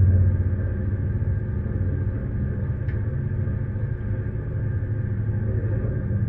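A ship's engine running steadily: a low, constant drone with a steady hum, easing slightly about half a second in, with a faint click near the middle.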